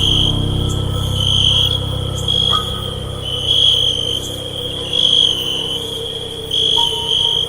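Horror-ambience sound effect: a steady high cricket chirring that swells in pulses about every second and a half, over a low rumbling drone that fades after about two and a half seconds, with faint eerie tones coming in near the end.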